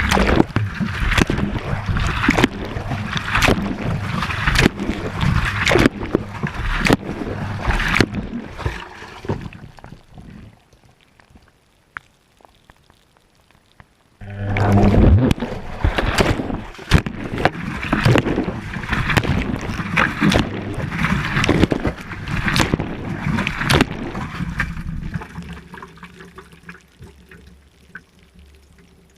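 Water sloshing and splashing inside a Whirlpool washing machine's drum as it tumbles, heard from inside the drum. About ten seconds in it fades out and stays nearly quiet for about four seconds, as the drum pauses between turns, then the sloshing starts again and slowly dies down near the end.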